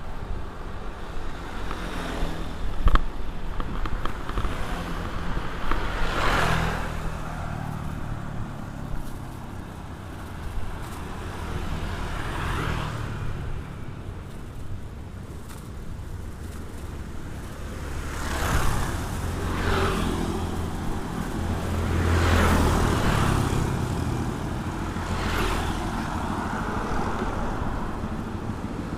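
Road traffic: a steady low rumble of engines and tyres, with about six vehicles passing close by one after another, each swelling and fading. A single sharp click sounds about three seconds in.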